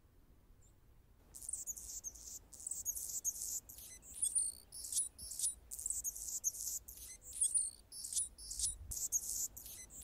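Anna's hummingbird singing: a rapid run of short, high, scratchy notes, starting about a second in.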